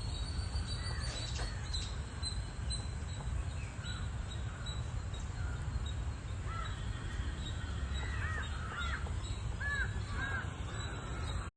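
Birds calling, with a run of short arching calls in quick succession in the second half, over a steady low rumble.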